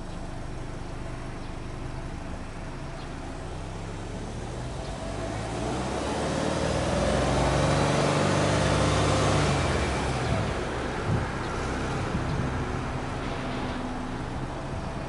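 Subaru Legacy B4 2.0GT spec B's turbocharged 2.0-litre boxer flat-four heard at its twin exhausts: idling steadily, then revved up about five seconds in, held at higher revs for a few seconds and let fall back to idle.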